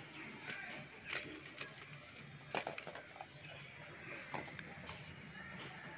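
Faint handling noise of a float switch cable being tied into a knot: a few soft clicks and rubs, the loudest about two and a half seconds in.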